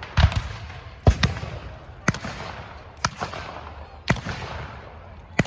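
Scattered blank gunfire in a reenactment skirmish: sharp shots about once a second, several in quick pairs, each followed by a long echo.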